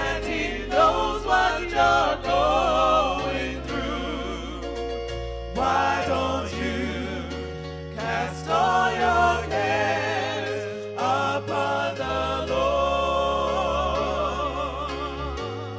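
Gospel music: a vocalist singing with heavy vibrato over sustained low chords.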